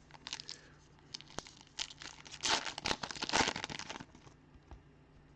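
Baseball cards being flipped through by hand: light scattered flicks and rustles, busiest for about a second and a half in the middle.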